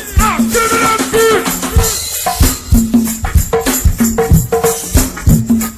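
Live go-go band music: drum kit and hand percussion keeping a steady beat, with sliding pitched notes over it in the first couple of seconds.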